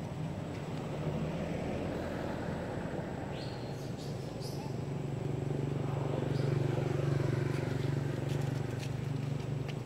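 A motor vehicle's engine running, a steady low drone that grows louder about halfway through and eases near the end, with a few light clicks over it.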